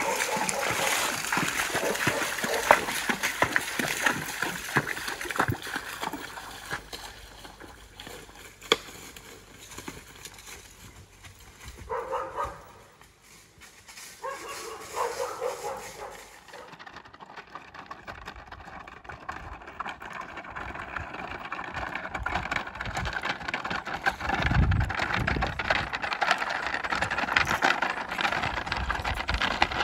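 A gaited horse's hooves splashing through a shallow creek, fading as it moves away. Two short calls come in the quieter middle stretch. Then hoofbeats on a gravel road.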